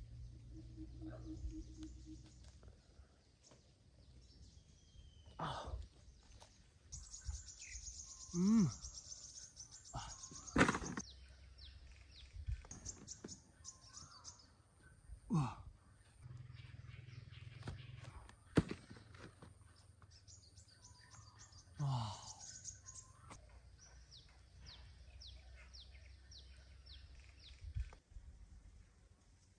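Outdoor ambience with birds chirping and trilling in quick high runs, and several short knocks scattered through it.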